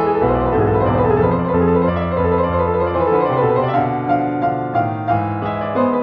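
Piano music, many quick notes over sustained low notes.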